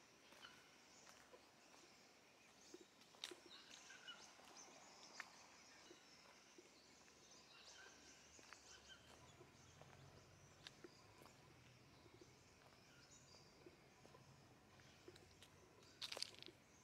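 Faint forest ambience: scattered small bird chirps and calls with soft footsteps on a leaf-strewn path, and a brief crunchy cluster of clicks near the end.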